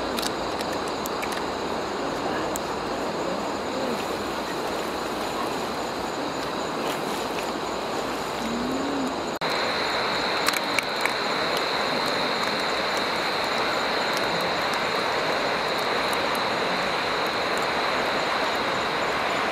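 Night-time outdoor ambience: a steady high-pitched drone of night insects over a broad, even hiss. The whole bed steps up in loudness about nine seconds in, and a few sharp crackles come soon after.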